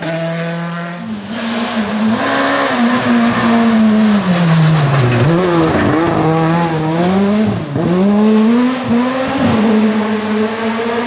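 Škoda Fabia rally car at full stage pace, its engine revving hard and rising and falling quickly through gear changes. Between about five and eight seconds in, the pitch drops sharply several times as the driver lifts off and downshifts, then pulls away again. The first second holds a steady high engine note from another car.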